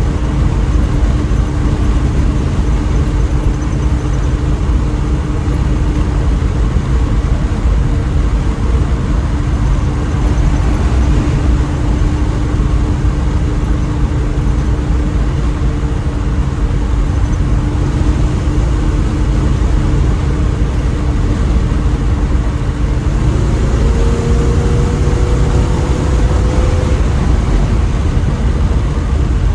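Small-block Chevy 350 V8 with a new exhaust, driving at a steady engine speed. About three-quarters of the way through, its note rises as the engine picks up revs, then holds at the higher pitch.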